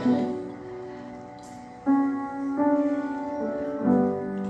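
Grand piano played slowly, without voice: a few chords struck, each left to ring and fade before the next.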